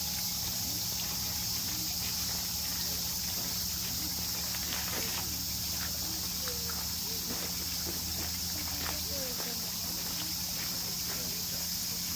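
Steady, high summer insect chorus over the low rush of flowing river water, with scattered small splashes and gurgles.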